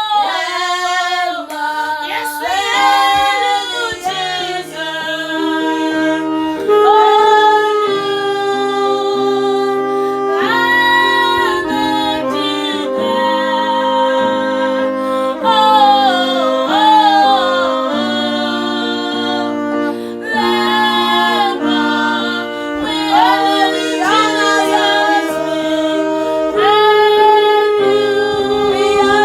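Female voice singing a worship song, with ornamented, gliding phrases over sustained accompanying chords that change every couple of seconds.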